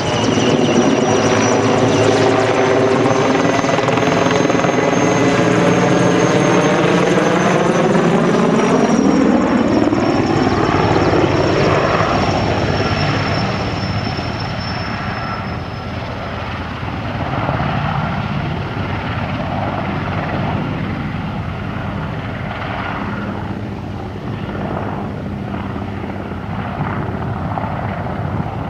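Mil Mi-24 attack helicopter flying past: its twin turboshaft engines whine high and the rotor beats, and the whole sound drops in pitch as it goes by about ten seconds in, then carries on rougher and a little quieter as it moves away.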